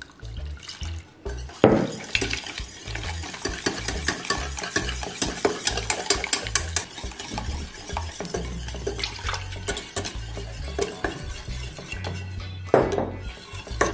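Wire balloon whisk beating a milk-and-egg mixture in a stainless steel saucepan, its wires clinking and scraping rapidly and unevenly against the pan's sides and bottom. The whisking picks up sharply about two seconds in and keeps going.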